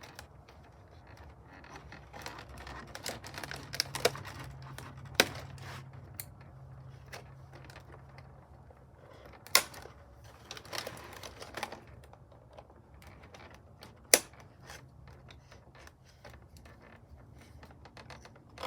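Plastic doll packaging being handled and cut to free a doll: irregular sharp clicks and snips with light rustling, the loudest about five, nine and a half and fourteen seconds in.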